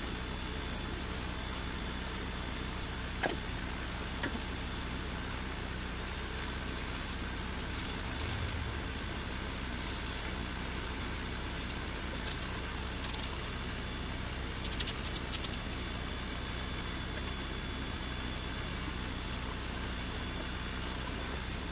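Creality Falcon 2 22 W diode laser engraver running while it engraves plywood: its fan and air assist give a steady noise, with a few faint clicks.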